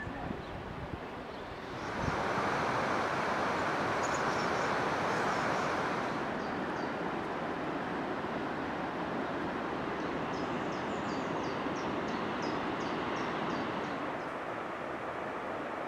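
A steady outdoor rushing noise that comes up sharply about two seconds in, with a small bird chirping in quick runs of short high notes, twice.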